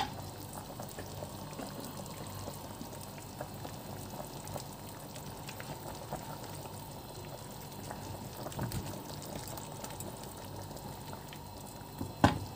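Pot of whole chicken parboiling in water with onion and spices: a steady, faint bubbling. A single sharp knock comes near the end.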